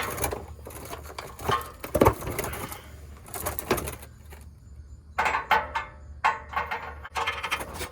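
Metal tools and car parts clanking and scraping in irregular knocks while working on a car's starter from underneath, with short pauses between the sounds.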